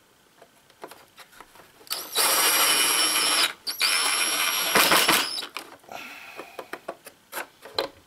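Cordless drill-driver running screws into the wooden box, in two bursts of motor whine: about a second and a half starting two seconds in, then after a brief stop another second's run. The screws are left only snug, not torqued down. Light clicks and taps of handling follow.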